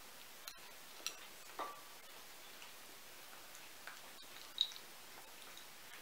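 A kitten eating wet pate and dry kibble from a china saucer: a handful of small, irregular clicks and smacks of chewing and of its mouth against the dish, the loudest about four and a half seconds in.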